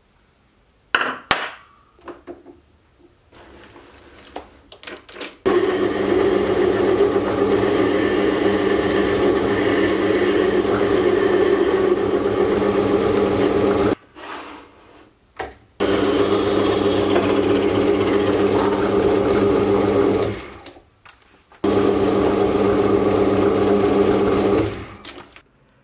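Small fixed-speed metal lathe turning a part: a steady motor hum under the noise of the tool cutting, in three long stretches that start and stop suddenly. A few light clicks and knocks come before it.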